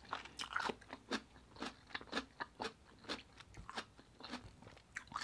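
A person chewing raw red radish with the mouth closed: quiet, irregular crisp crunches, about three a second.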